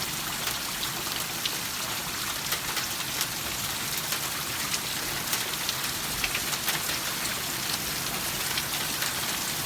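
Steady rain falling hard, with scattered sharp ticks of drops and the last few hailstones striking surfaces as a hailstorm dies down.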